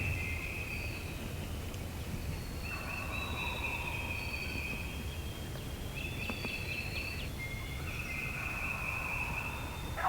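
Songbirds give repeated high trills, each lasting a second or two, over a steady low rumble of wind on the microphone.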